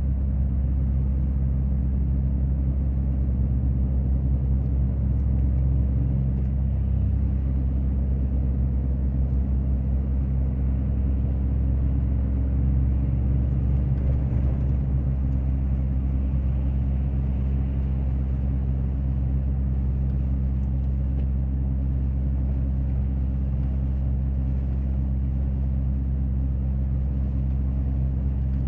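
Steady low drone of a semi-trailer truck's diesel engine with road noise, on the move.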